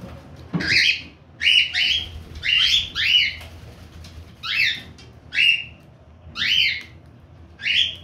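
Lutino cockatiels calling: about nine short calls, each sliding down in pitch, several coming in quick pairs.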